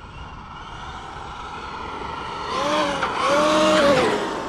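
Traxxas XRT RC monster truck on a 12S brushless setup running: an electric whine from the motor and drivetrain, then two bursts of throttle a little past halfway, each with a whine that rises and falls and a rush of tyre noise. The all-steel drivetrain, with its new machined spur gear, runs very quietly.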